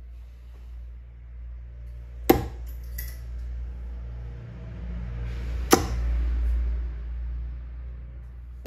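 Steel-tip tungsten darts (Mission Connor Scutt V2, 24 g) thudding into a bristle dartboard: two sharp strikes about three and a half seconds apart, with a third landing right at the end.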